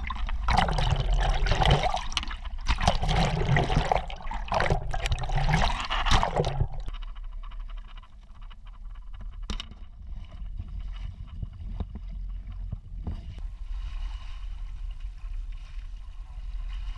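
Ocean waves sloshing and washing over a camera at the waterline: about three loud surges of splashing water in the first seven seconds, then quieter lapping with a low rumble.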